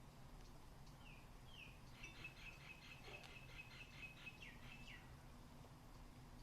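A faint small bird chirping: two short falling chirps, then a quick trill of about five notes a second for around three seconds, ending in falling notes. A low steady hum is underneath.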